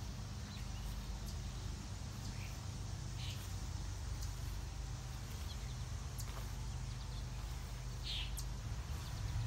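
A few short bird chirps over a steady low rumble on the microphone.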